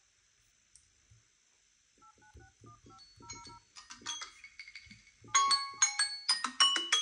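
Short dial-pad beeps, each with a soft screen tap, as a phone number is keyed in on a Samsung Galaxy Z Fold2. From about three seconds in, a Samsung timer alert on a Galaxy A72 starts quietly: a marimba-like chiming melody that turns loud about five seconds in.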